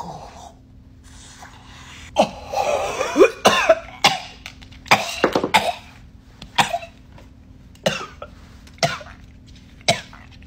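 A man coughing hard after inhaling vapour from four disposable vapes at once. A dense, strained fit starts about two seconds in, followed by single harsh coughs about once a second.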